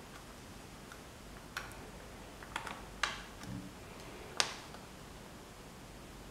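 A few scattered sharp clicks and taps over a low room hiss, the loudest about two thirds of the way in, with a soft low thump among them.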